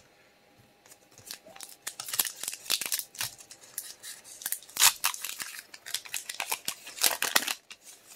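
A foil Pokémon booster pack being torn open and its wrapper handled: irregular short rips and crinkles, loudest about five seconds in and again around seven seconds in.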